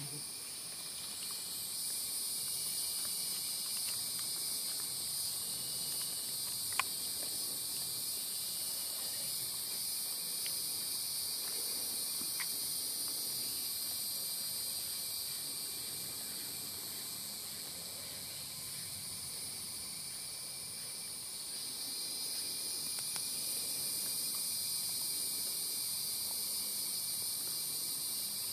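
Steady dusk chorus of insects trilling in several high-pitched bands that slowly swell and fade, with one sharp click about seven seconds in.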